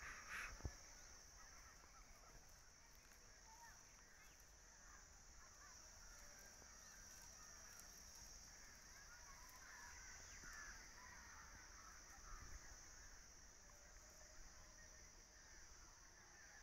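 Near silence: a faint steady high-pitched insect chorus, with scattered faint bird calls.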